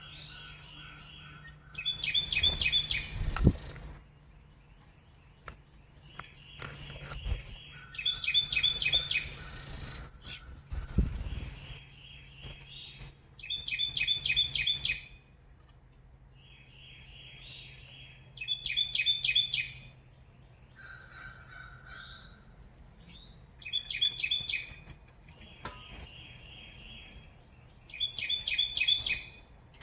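A songbird singing the same short, bright song over and over, about every five seconds, with softer bird calls between the songs. A couple of thumps come early on the song's first and third repeats.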